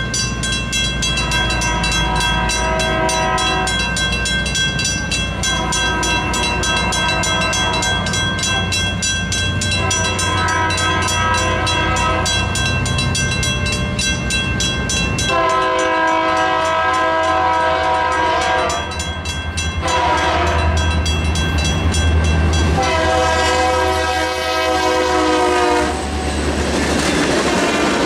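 Railroad crossing bell ringing rapidly while an approaching freight locomotive sounds its horn in a series of blasts, mostly long with a couple of short ones. From about halfway a deep locomotive engine rumble swells as the engine passes, and near the end it gives way to the rolling noise of covered hopper cars going over the crossing.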